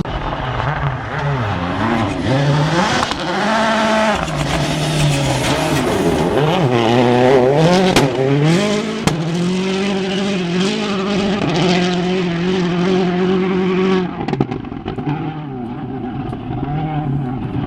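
Rally car engine driven hard on a gravel stage, its revs climbing and dropping again and again through gear changes and lifts, with a couple of sharp cracks near the middle. From about fourteen seconds in it sounds duller and quieter as the car draws away.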